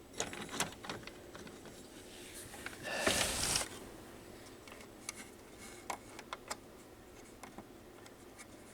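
Hands working inside a CD player's drawer mechanism to get at its drive belt: scattered light clicks and scrapes of small parts, with one louder scraping rustle about three seconds in.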